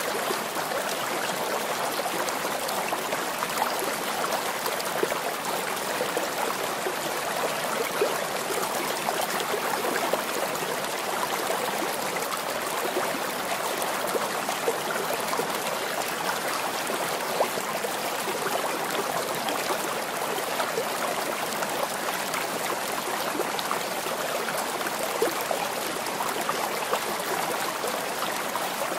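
Steady noise of running water, like a stream, unchanging throughout.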